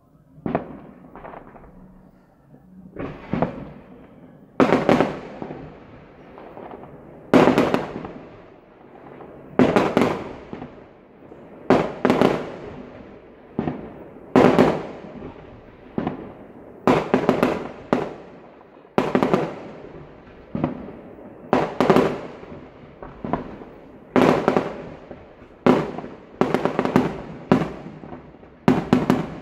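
Fireworks display: aerial shells bursting in a long series of loud bangs about every two seconds, each fading off in a rolling tail. Some bursts come doubled or tripled in quick succession, more often toward the end.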